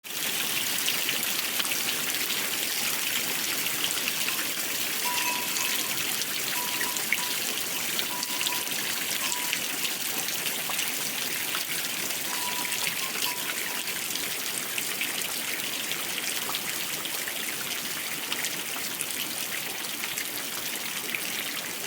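Steady rain falling, a continuous hiss of rain with many small drop impacts.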